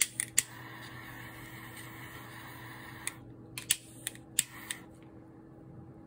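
Butane torch lighter clicked alight, its jet flame hissing steadily for about two and a half seconds while it heats a solder-seal wire splice connector. Then a run of several more sharp clicks with a shorter hiss, cutting off about five seconds in.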